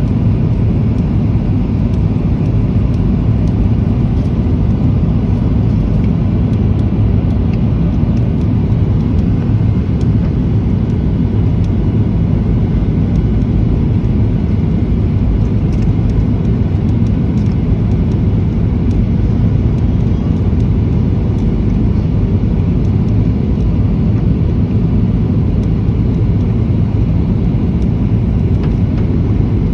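Steady cabin noise of a jet airliner on landing approach: an even rumble of the engines and rushing air, heard from a window seat over the wing.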